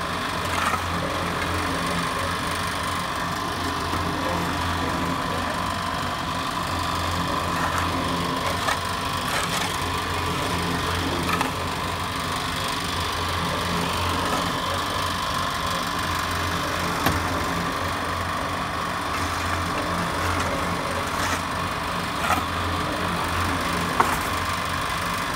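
Mini concrete mixer running with its electric motor humming steadily and its drum turning, while a steel shovel scrapes and scoops sand and mortar, with a few sharp knocks, the loudest near the end.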